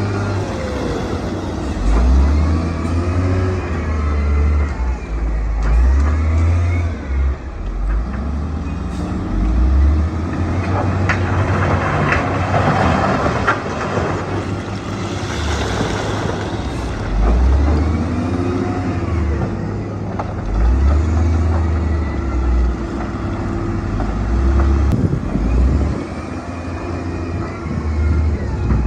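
Diesel engines of heavy earthmoving machinery working. The engine note rises and falls every few seconds under changing load, with occasional knocks.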